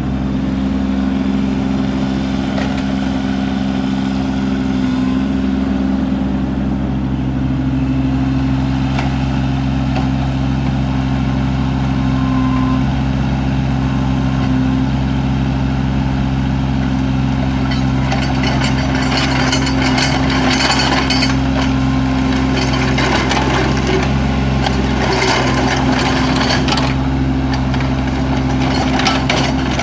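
A 1994 Kubota KX41 compact excavator's three-cylinder diesel engine running steadily while the boom and arm are worked. From about two-thirds of the way through, a rougher, noisier sound rises over the engine.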